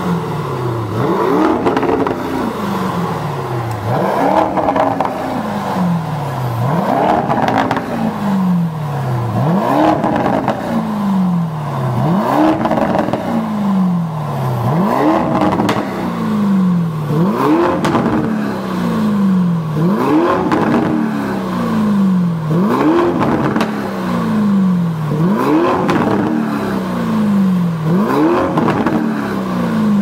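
Lamborghini Urus twin-turbo V8 revved again and again at standstill through a Fi valvetronic cat-back exhaust in Corsa/Sport mode. About a dozen throttle blips, one every two and a half seconds or so: each rises quickly and then falls slowly back down.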